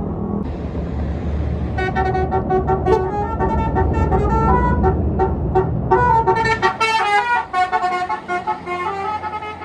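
Tour bus 'basuri' telolet horn playing a quick tune of stepped, changing notes, over the low rumble of the bus engine. A short hiss comes just before the tune, and the rumble drops away about two-thirds through while the horn plays on.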